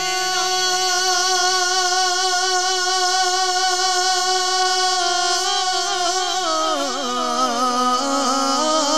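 A man's solo voice singing an Urdu devotional rubai (naat) into a microphone. He holds one long steady note, then breaks into wavering, ornamented runs about six seconds in.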